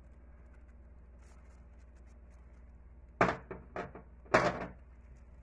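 A container of crushed black pepper shaken over pork ribs: a quick run of sharp rattles and knocks about three seconds in, about four a second, over a faint low hum.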